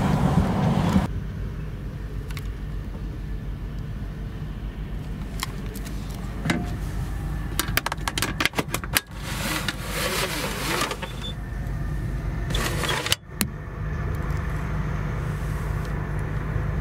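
Railway train noise: a steady low hum with a run of rattling clicks about halfway through.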